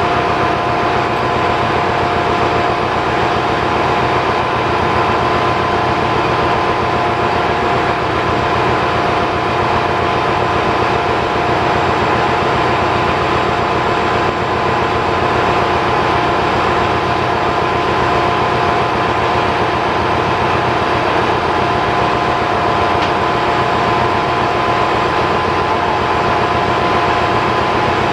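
Diesel engine machinery running steadily and loudly, an unchanging engine-room din with a constant high whine over it.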